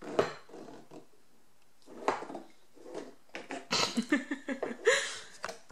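Small children at a breakfast table: scattered short knocks and slurping from sippy cups with straws, mixed with short wordless baby vocal sounds, busiest in the second half.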